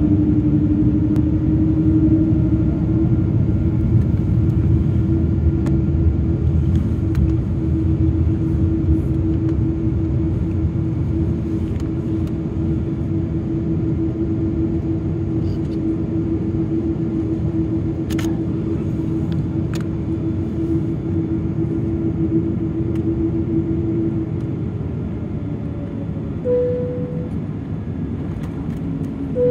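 Cabin noise of a Boeing 777-200 taxiing: the steady rumble of the jet engines at taxi power and the aircraft rolling on the taxiway, with a steady hum that fades out a few seconds before the end and two short higher hums near the end.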